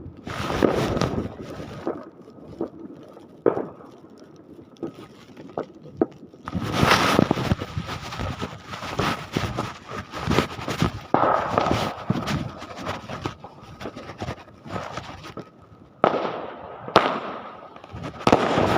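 Fireworks going off: sharp bangs and dense bursts of crackling that come in waves, with quieter gaps between them.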